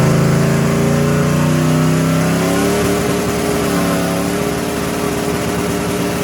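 Turbocharged drag-car engine running loud at raised revs. About halfway through, the deep steady drone turns into a rougher, rapid pulsing and the pitch slowly climbs.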